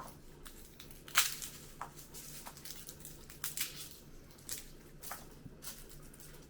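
Garlic bulb being broken apart by hand: dry papery skins crackling and cloves snapping off, with one sharp snap about a second in.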